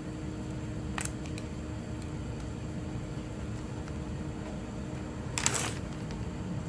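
Small handling noises from phone parts and tools on a repair bench: a light click about a second in and a short scrape near the end, over a steady low hum.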